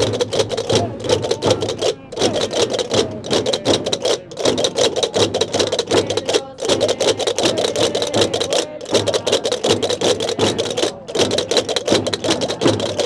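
Gomeran chácaras (large wooden castanets) clattering in fast continuous rolls, with hand drums beating and a group of voices singing a traditional tune. The playing breaks off briefly about every two seconds, in phrases.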